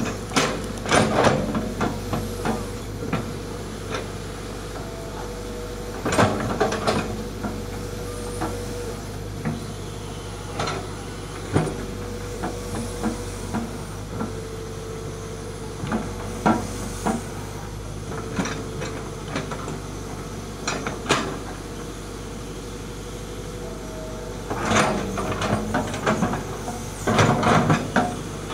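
Hitachi hydraulic excavator digging: its diesel engine runs at a steady drone while the steel bucket clanks and scrapes through soil and stones every few seconds, with a longer burst of scraping and knocking near the end.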